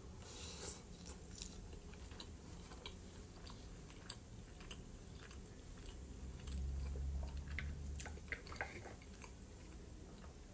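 Close-up eating sounds: chewing a mouthful of soft pan-fried potatoes and salad, with small wet mouth clicks and smacks. A low hum lasts about a second and a half near the middle.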